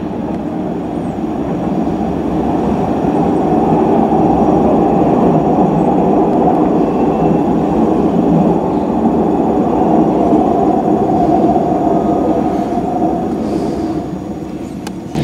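Lisbon Metro train running in the tunnel: a steady rumble of wheels on track with a faint motor whine, building over the first few seconds and easing near the end.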